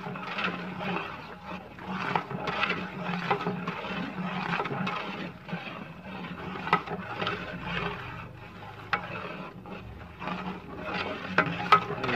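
A long metal ladle stirring thick semolina halwa in a large aluminium pot, in repeated scraping strokes, with several sharp clinks of the ladle against the pot in the second half.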